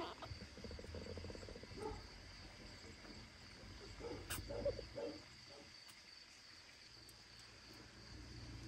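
Faint purring and soft snuffling from a mother cat and her nursing kittens, with a sharp click about four and a half seconds in.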